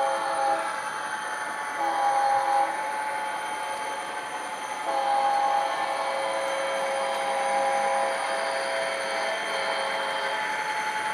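ESU LokSound decoder in a model EMD SD40-2B playing diesel locomotive sounds: the engine runs steadily under a multi-note air horn. The horn ends one blast right at the start, gives a short blast about two seconds in, and a long one from about five to nine seconds.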